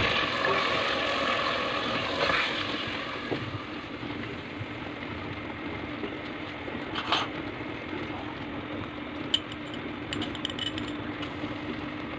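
Minced meat sizzling in an oiled metal pot as it is stirred with a wooden spoon. The sizzle is louder in the first couple of seconds, then settles to a softer steady hiss over a faint low hum, with a few light clicks and clinks of the spoon against the pot.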